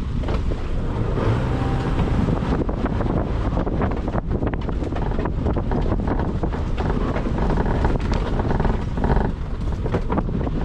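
A car being driven, its engine and tyre noise heavily overlaid by wind buffeting on an action camera's microphone.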